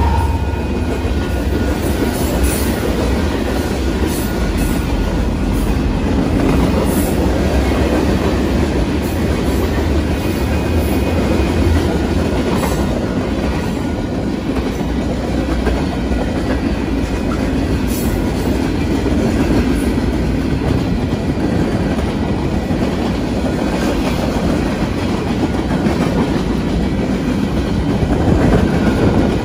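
Union Pacific manifest freight train rolling past at speed: a steady rumble of wheels on rail with clickety-clack over the joints. It is deepest while the locomotives pass, and eases after about twelve seconds as the freight cars go by.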